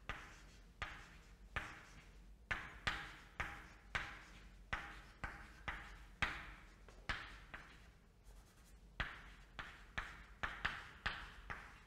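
Chalk writing on a blackboard: a string of short chalk strokes and taps, about two a second, with a brief pause about two-thirds of the way through.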